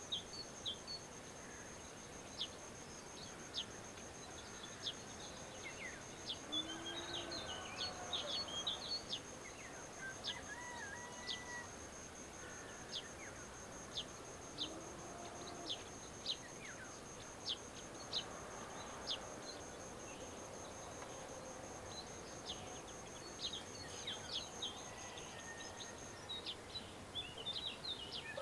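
Outdoor ambience of birds calling: sharp high chirps repeating roughly once a second, with warbled phrases between them, over a steady high-pitched insect trill that stops about two seconds before the end.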